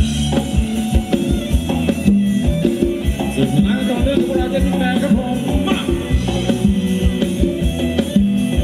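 Live band playing Thai ramwong dance music over the loudspeakers, with a steady drum beat under the melody.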